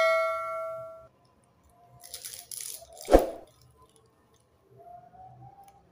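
A bell-like ding sound effect rings out and fades within the first second. About three seconds in comes a crisp crunch, the loudest sound, as a fried piscok (banana and chocolate in a spring-roll wrapper) is bitten into, followed by faint soft chewing.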